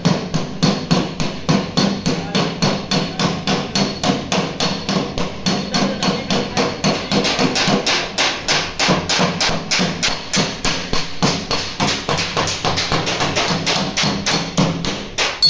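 Hammer blows on the sheet steel of a Suzuki Alto's damaged front door, a rapid steady train of about four to five strikes a second, as the dent is beaten out.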